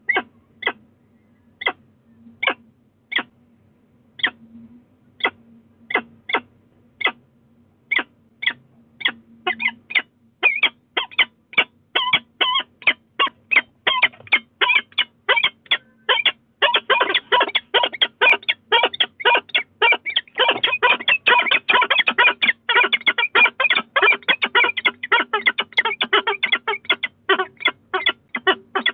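Peregrine falcons calling: short, sharp calls, spaced at first, then quickening. From about halfway in they become a rapid, dense chatter of two birds calling over each other.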